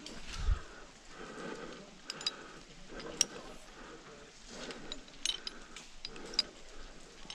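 Sharp metallic clicks and clinks of climbing carabiners being handled and clipped at the top anchor, over a climber's heavy breathing after the climb.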